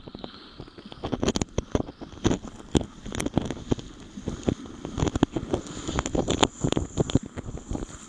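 Water sloshing and splashing in irregular strokes as a person wades through waist-deep water, with wind buffeting the microphone.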